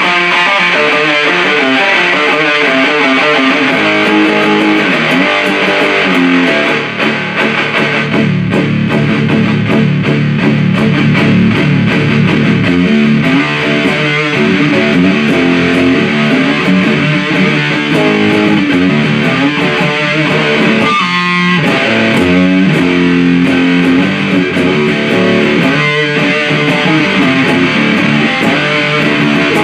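Electric guitar riffing continuously through a Big Muff-style op-amp fuzz pedal, the Supercoolpedals 77 Fuzz Blender, with a thick distorted fuzz tone. The riff drops to its lowest notes about eight seconds in.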